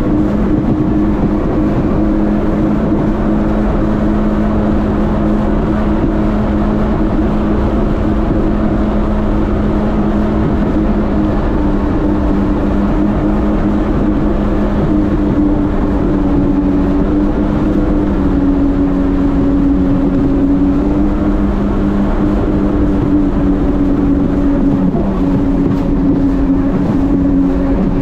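Jet ski engine running steadily at cruising speed under a constant rush of wind and water. The engine note eases down a little in the second half.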